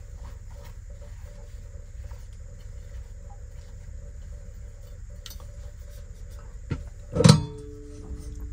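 Small clicks of utensils on dishes over a steady low hum. About seven seconds in, a stainless-steel pot clanks loudly and rings for about a second.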